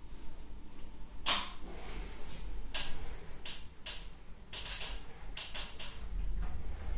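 Hands working soft bread dough for pita, giving a string of short, irregular squishing and rustling sounds.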